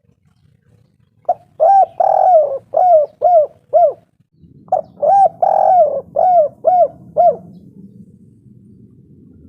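Spotted dove (tekukur) cooing: two song phrases of five or six coos each, each phrase with one drawn-out note near its start, the second phrase following the first after a short pause. A faint low hum runs under the second phrase.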